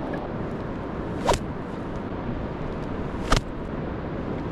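A long strand of bull kelp swung like a whip, giving two sharp snaps about two seconds apart over a steady background hiss.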